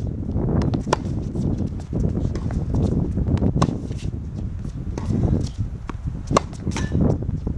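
Tennis racket striking the ball in a baseline rally: sharp pops a few seconds apart, about three in all, with fainter ticks of bounces and footwork between them.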